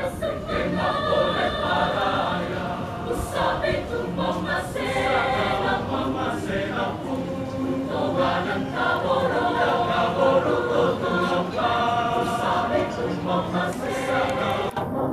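Mixed choir singing a Christmas piece in several parts, many voices holding and moving between chords together.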